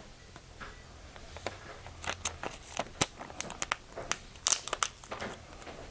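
Handling noise: a rapid, irregular run of crinkles and sharp clicks, starting about a second and a half in and easing off near the end.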